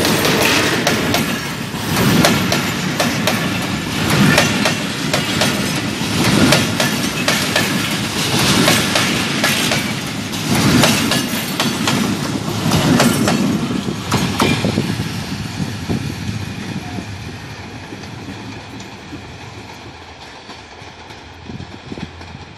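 Passenger train coaches passing at close range, the wheels clattering over the rail joints in groups of clacks about every two seconds. From about fifteen seconds in the sound fades steadily as the train moves away.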